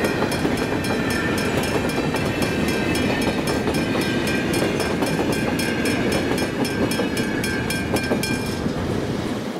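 Freight train of grain hopper wagons rolling over the level crossing with a steady rumble and wheel clatter, under the quick repeated strikes of the crossing's Westinghouse hybrid electronic bell. The bell stops near the end as the last wagon clears, and the rumble drops off just after.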